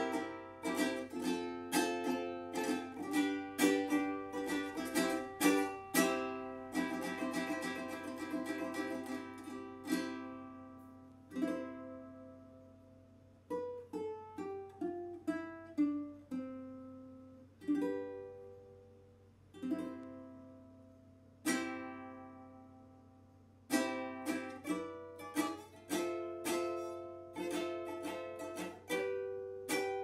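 An aNueNue Green Bird UT110 tenor ukulele with a South American mahogany body, played solo. Chords are strummed in a steady rhythm, with a fast tremolo strum about eight seconds in. In the middle come slower single ringing chords and a descending run of notes, then steady strumming again from about three-quarters of the way through.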